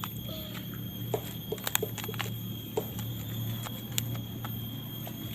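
Banana flower bracts being peeled off by hand: a string of short crisp snaps and clicks, bunched in the first few seconds with one more about four seconds in, over a steady background hum.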